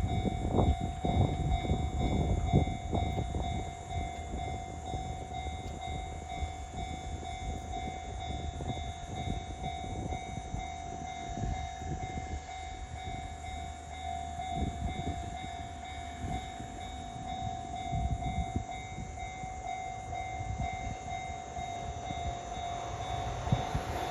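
A Japanese railroad crossing alarm rings its steady repeated electronic clang while a Nishitetsu 6000 series train runs through the crossing. The wheels knock and rumble over the track, heaviest in the first few seconds.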